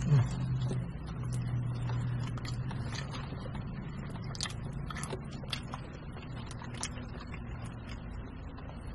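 People biting into and chewing grilled chicken sandwiches, with small irregular wet mouth clicks and smacks, over a steady low hum.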